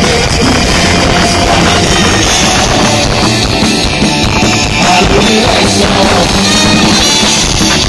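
A rock band playing live and loud through a PA: electric guitars, bass guitar and drum kit together.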